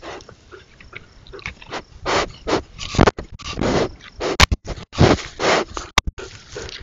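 A bear cub sniffing and snuffling right at a trail camera's microphone: loud breathy sniffs repeat about every half second from about two seconds in, after fainter ones. Three sharp knocks as it bumps the camera housing.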